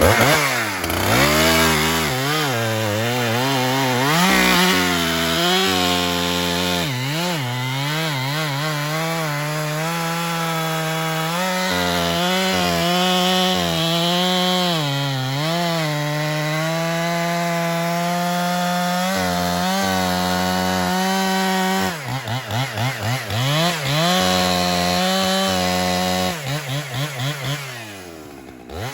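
Large professional two-stroke chainsaw with a long bar, cutting through hard gum under load. Its engine note dips and recovers in the first seconds, then runs fairly steady through a long cut. Late on it wavers and flutters rapidly, then falls away quieter near the end.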